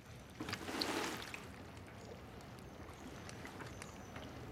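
Wet laundry being scrubbed on a wooden washboard in a tub of water, a sloshing, rubbing sound that is loudest about a second in and then settles into a softer, steady scrubbing.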